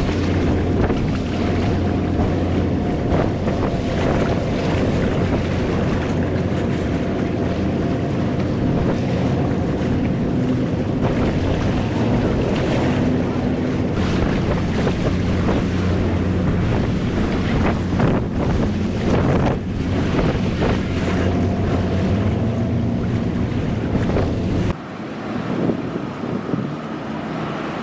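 A boat engine drones steadily with wind blowing on the microphone and water noise. The low rumble drops away abruptly near the end.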